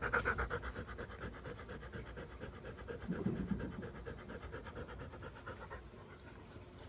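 Husky panting quickly close to the microphone, a fast even rhythm of breaths that fades toward the end.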